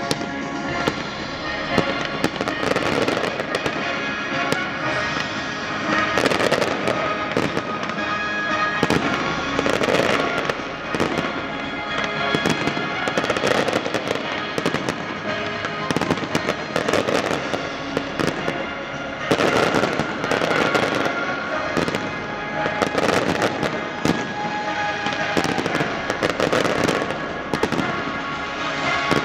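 Aerial fireworks display: shells bursting in quick succession with repeated bangs and crackle, over music playing throughout.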